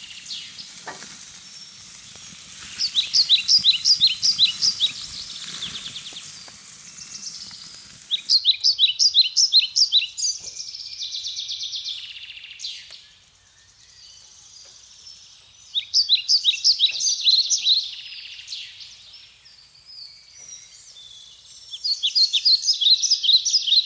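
A songbird singing loud phrases of quick, high, repeated notes, each phrase about two seconds long, four times with pauses between.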